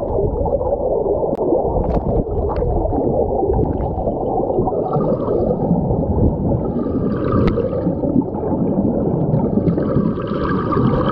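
River water rushing and gurgling close to the microphone: a loud, steady churning noise, with a few sharp clicks in the first seconds and a brighter hiss joining near the end.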